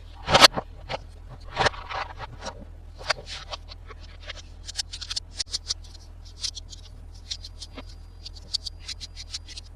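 Plastic toys and packaging being handled: irregular clicks, taps and crinkly scraping rustles.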